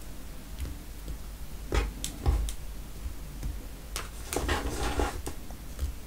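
Mini marshmallows being picked up by hand and placed on a whipped-cream-topped hot chocolate: a few soft, scattered taps, with a longer soft rustle about four seconds in.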